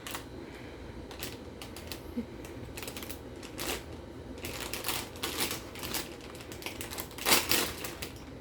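Plastic toy pieces and packaging being handled: irregular light clicks, taps and rustles, with a louder cluster of clacks near the end.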